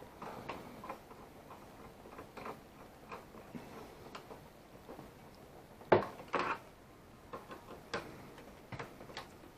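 Irregular light clicks and taps of small parts and tools being handled on a tape deck mechanism, with one sharper click about six seconds in.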